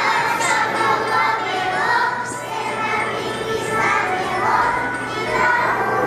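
A group of young children singing a song together, with music accompanying them.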